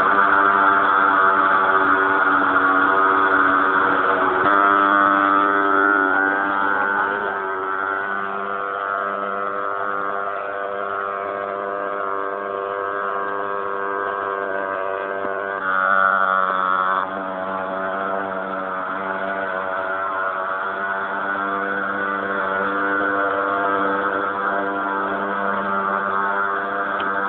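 Motorised insecticide fogging machine running with a steady pitched drone. Its pitch wavers a little a few seconds in and again about midway.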